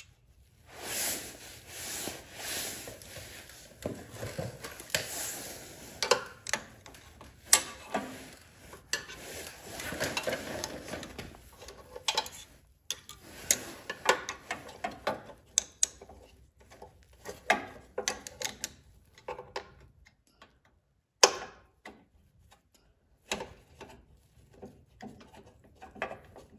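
Irregular metallic clicks and knocks with rustling between them as a replacement snowblower carburetor is handled and fitted onto its engine mount. One click about three-quarters of the way through is louder than the rest.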